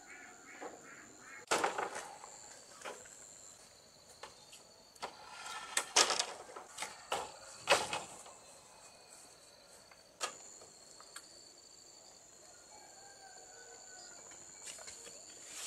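Insects chirring steadily at two high pitches, broken by a handful of sharp knocks and thumps, the loudest about six and eight seconds in.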